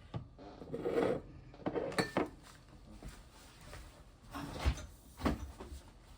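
Kitchen handling sounds while a sauce is made: a few separate knocks and clatters of a sauce bottle and utensils against the bowl and counter, with a short squelching or sputtering noise about a second in.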